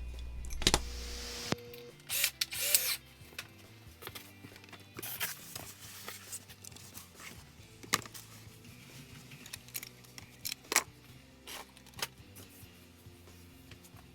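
Background music with steady notes, broken by scattered clicks and short rubbing sounds of small hardware parts being handled.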